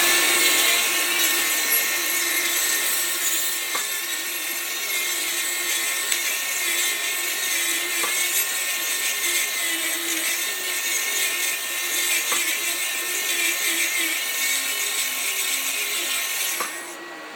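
Festool RenoFix renovation grinder running with a steady high whine and a broad rushing hiss. It drops away near the end as it is switched off.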